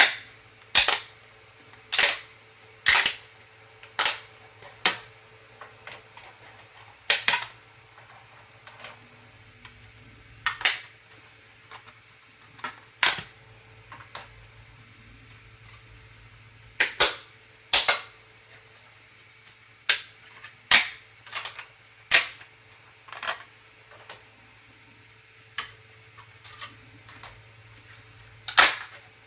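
3D-printed PLA pieces being snapped off their print rafts: sharp plastic cracks at irregular intervals, some single and some in quick pairs, over a faint steady hum.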